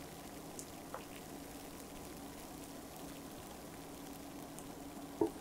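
Thick yogurt soufflé cake batter pouring from a glass bowl into a paper-lined cake tin: a faint, soft flowing sound, with a short knock about five seconds in.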